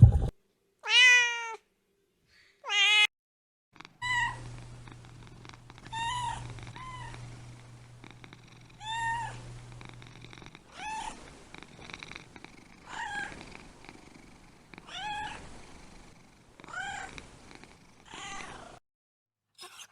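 Cat meowing: two loud meows rising in pitch near the start, then a long series of shorter, higher, fainter mews, one every second or two.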